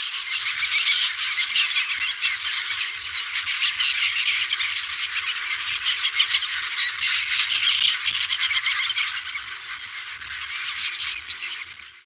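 A dense outdoor chorus of many calling animals, with rapid overlapping chirps and pulses, fading out near the end.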